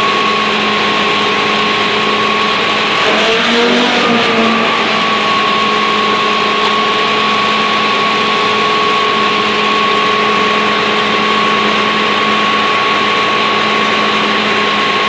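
Fire truck's Cummins diesel engine driving its fire pump at about 1,100 rpm and 100 psi, a loud steady drone with a constant high whine that wavers briefly about three seconds in. The uploader presents the pump as cavitating.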